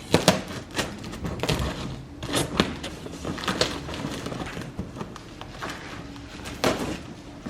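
Cardboard shipping box being opened by hand: irregular scraping, rustling of packing and knocks, with a sharper knock near the start and another near the end.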